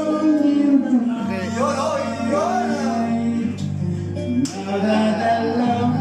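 Karaoke: a man singing along to a backing track played through the room's speakers.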